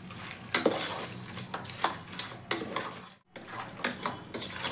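Metal spoon scraping and knocking against the inside of an aluminium pressure cooker as mutton pieces are stirred and fried, in repeated, irregular strokes.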